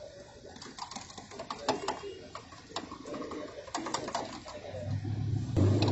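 Metal utensils and wire fry baskets clicking and clinking against steel pots, in quick irregular taps. About five and a half seconds in, a much louder low rumble starts up.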